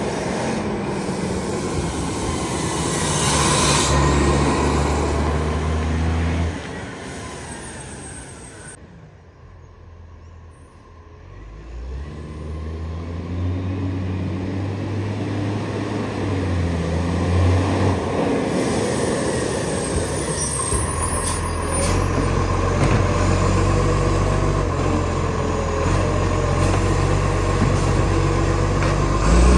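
Garbage truck's diesel engine with an exhaust leak, its speed stepping up and down as the truck works its run, with an air-brake hiss a few seconds in. The sound fades away about a third of the way in, then builds back up.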